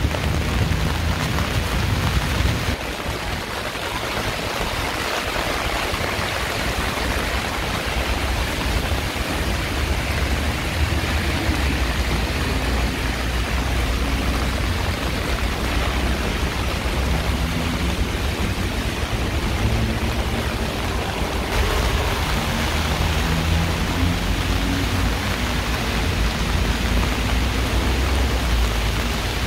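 Heavy rain pouring down on a city street as a steady hiss, with a low rumble of traffic underneath. The hiss changes in tone about three seconds in and again a little past twenty seconds.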